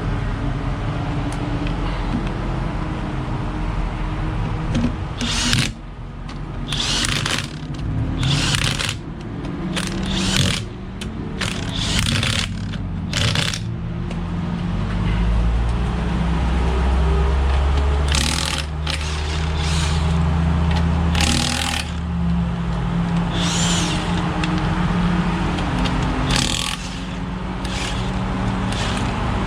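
Impact wrench running in about a dozen short bursts, spinning wheel lug nuts off or on during a tire swap, over a steady low engine hum.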